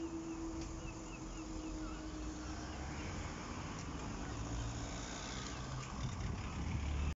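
A level crossing barrier's hydraulic pump motor hums steadily as the barriers rise, fading out about five seconds in. A low rumble of road traffic grows near the end, and faint bird chirps come early on.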